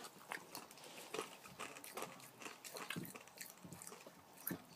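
Faint, scattered clicks and smacks of a boy eating a sour sweet.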